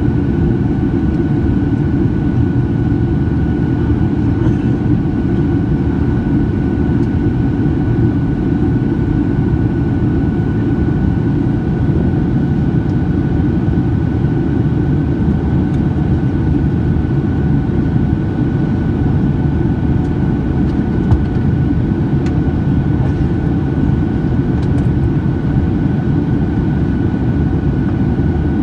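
Steady cabin noise inside a Boeing 737-800 on approach with flaps extended: a dull rumble of its CFM56 jet engines and the airflow, with a thin steady whine above it.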